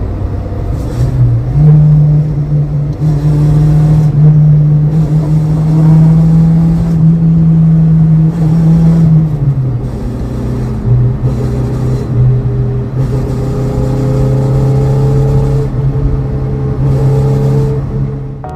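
Daihatsu JB-DET four-cylinder turbo engine running steadily at a held speed. About halfway through, the pitch drops to a lower steady note.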